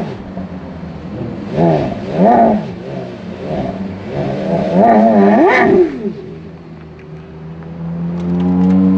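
Porsche Carrera GT's V10 engine revved from idle: two short revs, then a quick cluster of blips about five seconds in, before it drops back to a steady idle. Near the end the engine note rises gently and steadily as the car moves off at low revs.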